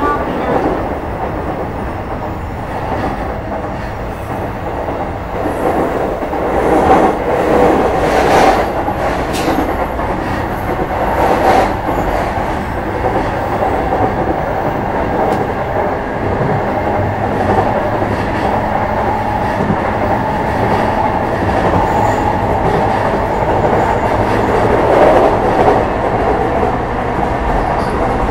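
JR East E233 series 5000-subseries electric train running at speed: a steady rumble of wheels on rail, with a few sharper clicks about eight and eleven seconds in.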